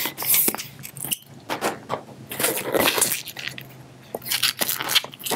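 A white 160 latex modelling balloon being handled and knotted after inflation, with irregular bursts of rubbing and squeaking latex.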